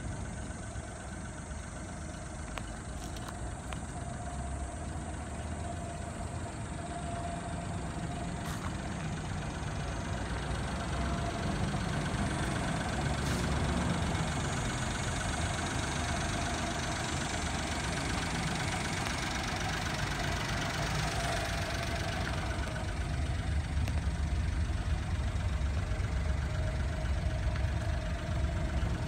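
Honda Acty kei truck's small three-cylinder engine idling steadily, growing louder toward the end.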